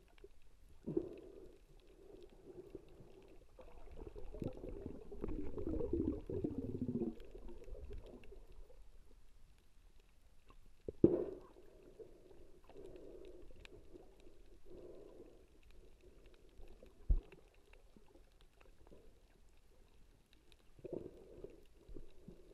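Muffled underwater sound around a submerged GoPro camera: water swishing and bubbling, louder between about four and eight seconds in, with a sharp knock about eleven seconds in.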